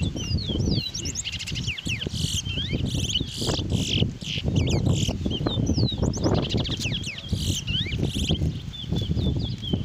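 Twa-twa (large-billed seed finch) song: rapid runs of whistled notes sliding up and down, repeated phrase after phrase, over a steady low rumble of background noise.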